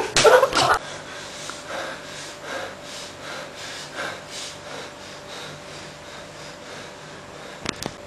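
Loud noise that cuts off abruptly under a second in, then rapid heavy breathing, about two breaths a second, over a faint steady hum. A sharp click comes near the end.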